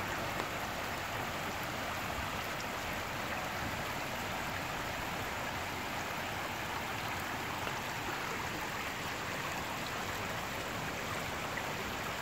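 Steady, even rushing of water after a heavy rainstorm.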